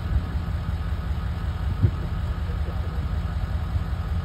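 Vehicle engine idling with a steady low rumble, and one short low thump a little under two seconds in.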